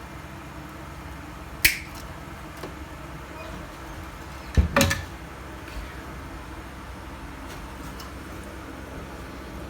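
Two sharp clicks about three seconds apart, the second a quick double click, over a steady hiss.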